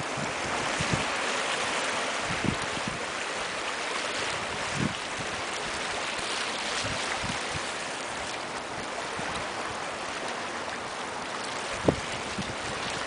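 Small sea waves washing and splashing against shoreline rocks, a steady hiss, with a few brief low bumps of wind on the microphone.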